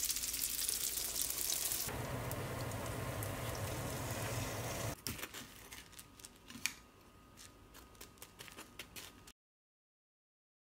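Rice-flour bread rolls frying in hot oil: a steady sizzle for about five seconds. After that, quieter light scraping and tapping as a fried roll is rolled in kinako sugar on a plate, then silence near the end.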